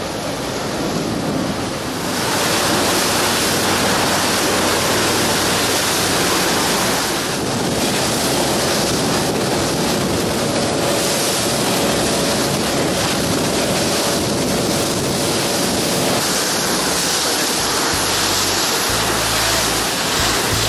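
Steady rush of wind and water spray, with wind buffeting the microphone; it grows louder about two seconds in and then holds.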